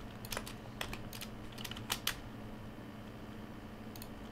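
Computer keyboard keys clacking in quick little runs through the first two seconds, then a pause and two or three more keystrokes near the end, over a faint low hum.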